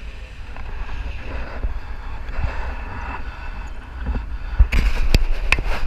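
Wind rushing over a camera microphone in flight, a steady low rumble. From a little past halfway, a run of sharp knocks and clicks as the camera is moved against the harness.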